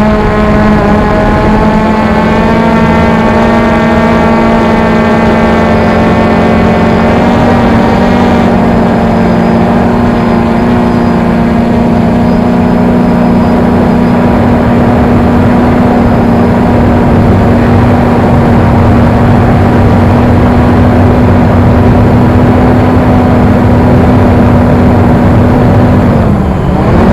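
XK X380 quadcopter hovering: its motors and propellers give a loud, steady hum. Near the end the pitch dips briefly and comes back up.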